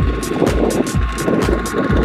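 Background music with a steady beat, over the engine of a Kubota ZT155 two-wheel tractor, a single-cylinder diesel, running under load as it hauls a heavy trailer up a slope.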